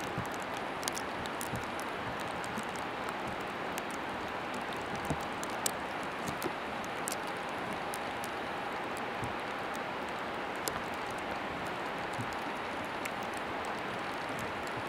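Steady running noise of a moving vehicle heard from inside, with a faint steady whine and scattered small clicks and ticks.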